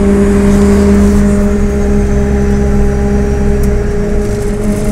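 MAZ 103 city bus driving, heard from inside the passenger cabin: a steady drivetrain hum with a held whine over road rumble. The deep rumble eases about four seconds in.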